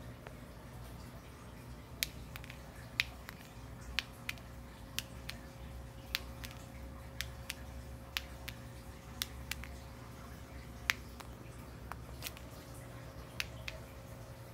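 Sharp, light clicks a couple of times a second at irregular intervals, starting about two seconds in: a Mexican jumping bean ticking against floor tile as the moth larva inside jerks it. A faint steady appliance hum lies underneath.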